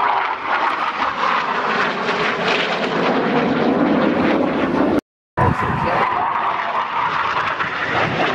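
Jet aircraft flying a display overhead, its engine noise loud and steady with slowly shifting pitch. The sound cuts out completely for about half a second about five seconds in.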